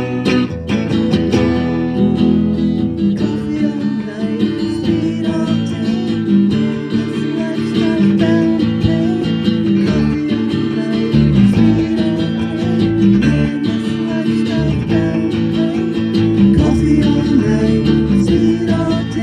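Live band playing a song: strummed guitars over a bass line, with a melody line wavering above them through the middle of the passage.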